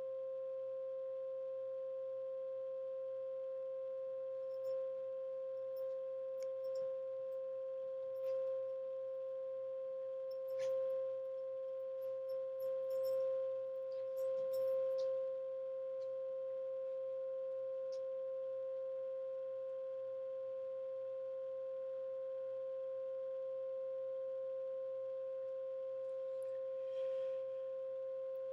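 A steady 528 Hz tone with a fainter tone an octave above it, unchanging throughout. Faint clicks and rustles come now and then, mostly between about five and fifteen seconds in.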